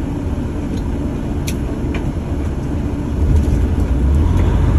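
Semi truck's diesel engine rumbling in the cab, getting louder about three seconds in as the truck pulls away from a green light. A couple of light clicks come before it.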